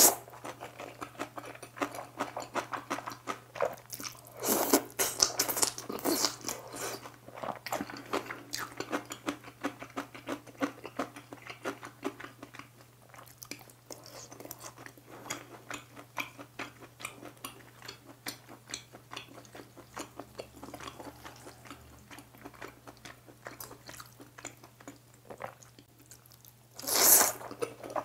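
Close-miked chewing and wet mouth sounds of a person eating Chapagetti, black-bean-sauce instant noodles, many small smacks and clicks. Noodles are slurped loudly about five seconds in and again near the end.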